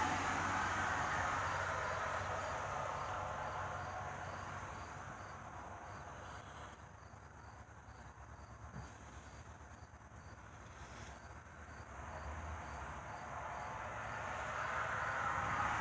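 Insects chirping in an even rhythm over a faint low hum and background noise that fades away and comes back. No train horn sounds.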